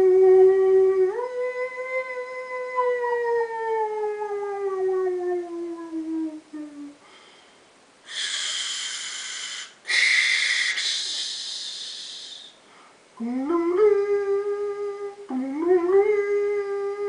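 A man's voice imitating a machine: a held hum that steps up, then glides slowly down and fades, a hiss lasting about four seconds, then two hums that each rise and level off.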